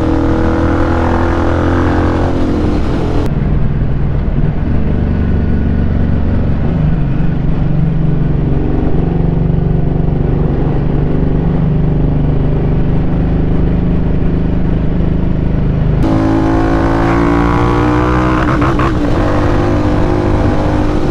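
Motorcycle engine running under way, in several spliced stretches: a steady drone for most of it, then revving up with rising pitch in the last few seconds.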